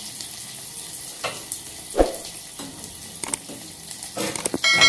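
Chopped onion and green chillies sizzling in hot oil with cumin and mustard seeds in a steel pot: the tempering (chhaunk) for dal fry. A few knocks of a spoon against the pot, and a ringing metal clang near the end.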